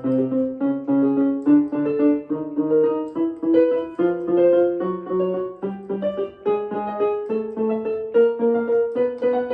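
Piano accompaniment for a vocal glissando exercise: short repeated chords, a few each second, moving up step by step to a new key for each repetition of the exercise.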